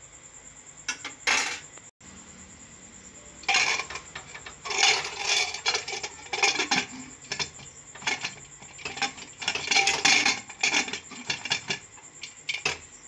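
Aluminium pressure cooker lid being fitted inside the pot and locked with its handle: metal clanks, scrapes and rattles against the pot rim. A brief clatter comes about a second in, then repeated bursts from about three seconds in until near the end.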